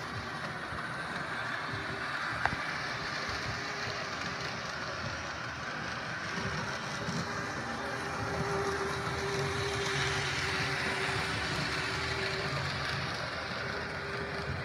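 Model railway locomotive running around the layout: a steady whirring hum of its small electric motor and wheels on the track, with one sharp click about two and a half seconds in.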